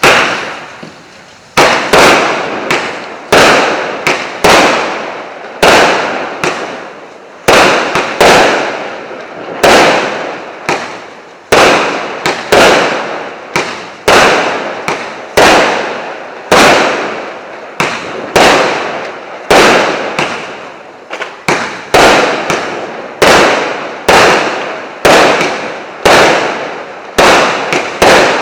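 Combined consumer fireworks cake (1.2-inch and 1-inch shot battery) firing shot after shot, about one to two a second at uneven spacing, each a sharp bang with a fading tail.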